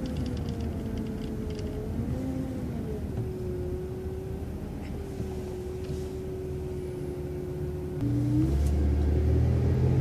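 City transit bus driving along, its engine and drivetrain running with a steady whine that drops and holds in pitch. About eight seconds in, the engine grows louder with a deeper rumble and a rising tone as it pulls harder.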